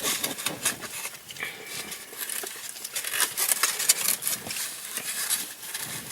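Close-miked eating sounds: chewing with many quick, wet clicks and smacks of the mouth.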